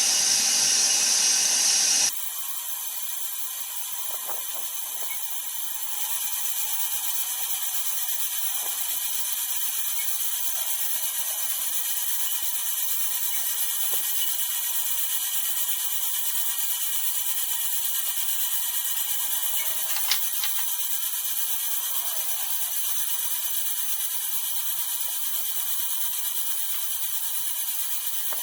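A loud power-tool sound that cuts off abruptly about two seconds in. After it, a steady, high-pitched mechanical whir of brake-disc resurfacing (machining the worn disc), with a single small click about twenty seconds in.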